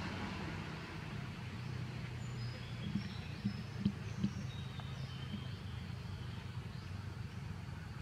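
Outdoor background: a steady low hum with faint, thin, high bird chirps around the middle and a few soft taps.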